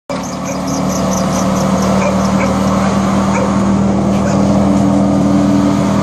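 Electric disc wood chipper running with a loud, steady hum while a thick log is fed into its chute and chipped.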